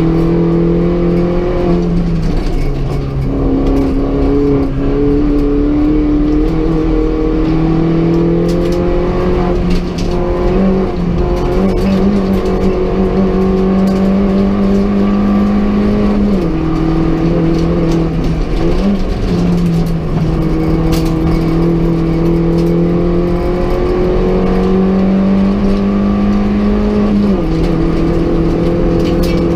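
Mini Cooper S race car's engine heard from inside the stripped, roll-caged cabin, pulling hard under load. Its note climbs slowly in each gear and drops sharply at gear changes about 3, 16 and 27 seconds in, with brief lifts off the throttle in between.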